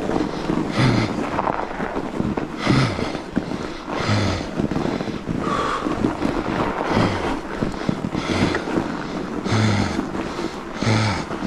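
A fat-bike rider breathing hard and loud, a heavy voiced exhale about every second and a half, the sign of a rider out of breath. Under it runs a steady noise of the tyres rolling over packed snow and wind on the microphone.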